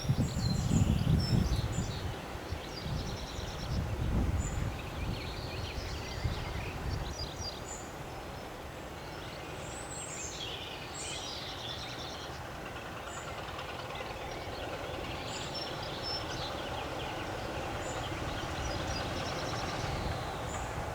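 A train runs loud at first, with pulsing rumbles, then eases off into a steady distant rumble. Birds sing throughout.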